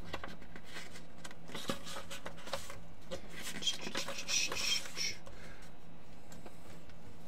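Quiet room tone with a steady low hum, a few faint scattered clicks, and a brief soft rustle about four seconds in.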